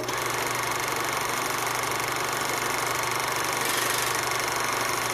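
A machine's motor running steadily, a constant hum under an even hiss.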